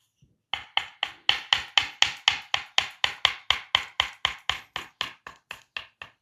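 Percussive massage strokes: the masseur's hands striking the body in quick, even chopping taps, about four a second, easing off a little near the end.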